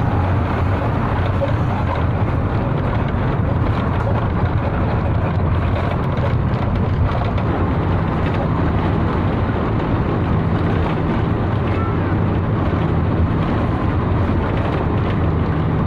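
Steady drone of a moving bus heard from inside the cabin: engine hum low and even, with road and rattle noise over it.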